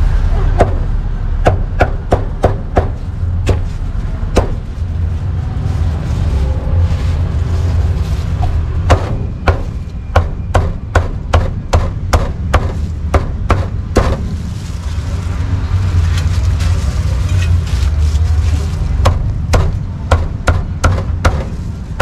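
Heavy cleaver chopping roast duck on a thick round chopping block: runs of quick sharp chops, about two or three a second, broken by short pauses, over a steady low rumble.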